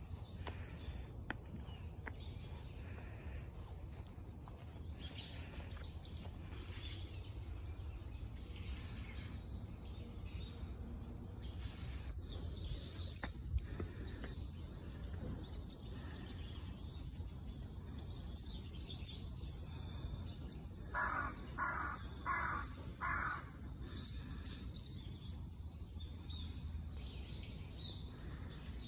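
A crow caws four times in quick succession over a steady low background rumble. A single sharp click comes about halfway through.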